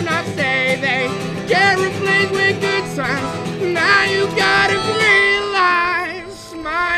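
Live band music: a melodic lead line with bending, wavering notes over sustained guitar and bass backing. The low end drops out about five seconds in, and the music briefly thins near the end.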